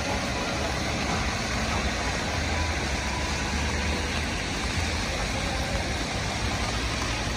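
Steady rain, an even hiss with a low rumble underneath.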